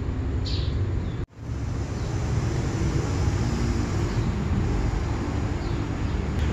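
Steady outdoor background rumble with a short high chirp about half a second in; the sound cuts out for a moment just after a second in.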